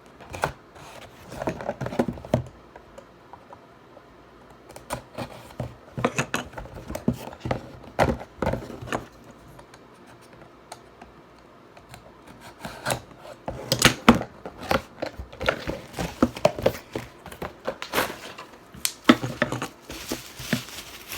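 Packaging being handled and opened: irregular clicks, scrapes and rustles of cardboard and plastic in bursts, with two short lulls, busiest in the second half.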